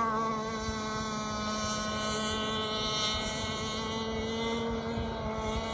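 Bonzi Sports 47 Skater gas RC catamaran's two-stroke engine running at speed with a steady high-pitched whine, dropping a little in loudness about half a second in as the boat moves away.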